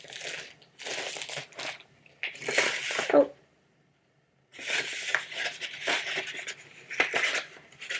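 Packaging rustling and tearing as a calendar is unwrapped by hand: three short bursts, a pause of about a second, then longer continuous rustling.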